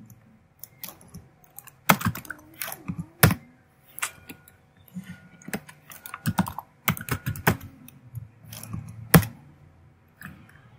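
Typing on a computer keyboard: irregular bursts of keystrokes, with one sharp, louder stroke about nine seconds in.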